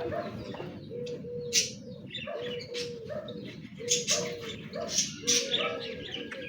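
Birds calling: a low two-note cooing call repeated about every second and a half, with short sharp high chirps in between.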